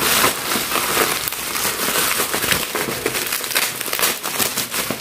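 Plastic mailer bag and bubble wrap crinkling and crackling as hands pull a parcel open.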